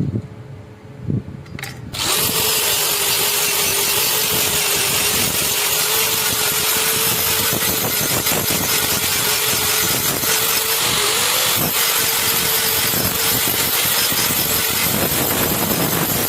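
An electric power tool starts up about two seconds in and runs steadily, giving a steady motor hum under a loud abrasive hiss as it works the metal of a knife blade. The hum dips briefly a few times, as if under load.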